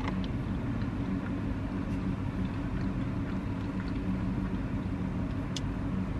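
Steady low hum of a parked car running, heard inside the cabin, with faint clicks of chewing and one sharper click about five and a half seconds in.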